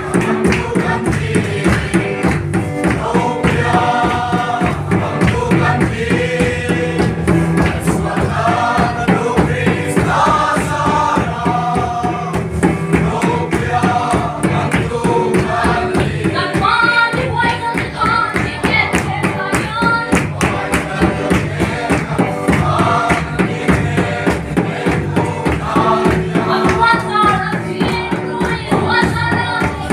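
A group of voices singing a hymn together in chorus over a steady, even beat.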